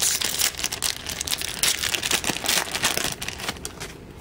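Trading card pack wrapper crinkling as it is torn open and handled, a dense, irregular crackle.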